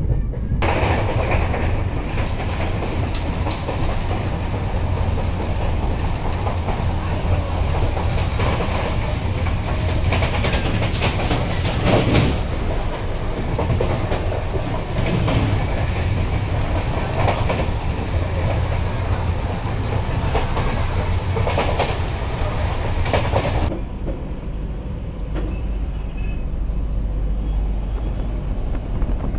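Shatabdi Express passenger coach running at speed: a steady rushing rumble with repeated clickety-clack clusters of wheels striking rail joints. Near the end the higher rushing noise cuts off suddenly, leaving a duller low rumble.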